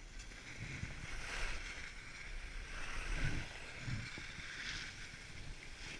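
Skis sliding and scraping over snow, a hiss that swells a couple of times, with wind rumbling on the microphone.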